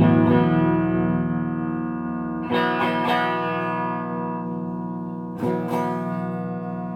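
Electric guitar played through an S&K VHD preamp into a rebuilt Acoustic 833 tube power amp, sounding full chords that are struck a few times and left to ring and fade. The tone has big bass and big high end.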